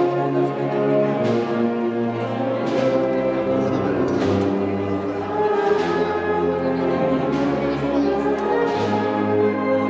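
A brass band playing a slow processional march, with held brass chords and a percussion strike about every second and a half.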